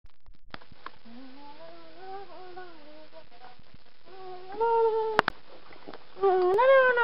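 A wordless voice humming: a faint wavering stretch, then a short louder held note cut off by a sharp click, and near the end a longer, louder note that rises and then falls.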